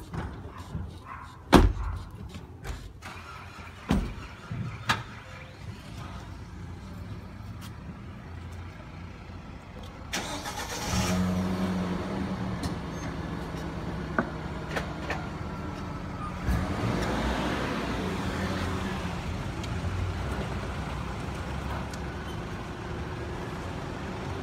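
A few car-door thumps in the first seconds, then a police pickup truck's engine starts about ten seconds in and runs steadily.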